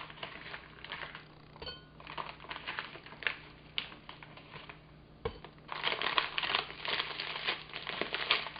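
Plastic bag of frozen mixed berries crinkling as it is handled and its resealable top pulled open. The crinkling is scattered at first and turns dense over the last few seconds.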